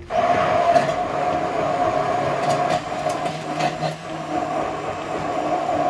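Electric hand blender with a whisk attachment whirring steadily as it whips cream in a glass cup. It switches on suddenly at the start, with a few light clicks of the whisk against the glass.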